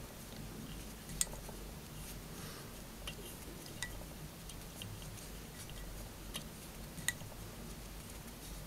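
Fly-tying bobbin and thread wrapped around the head of a fly held in a vise, giving a few scattered faint clicks over a low steady hum.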